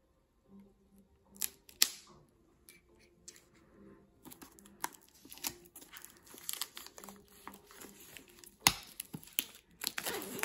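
Plastic shrink wrap on a DVD box being slit with a craft knife, then torn and peeled off, rustling, with a few sharp clicks about two seconds in and near the end.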